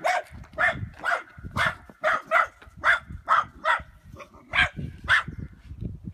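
A dog barking repeatedly, about ten sharp barks at roughly two a second, with a short pause near the four-second mark.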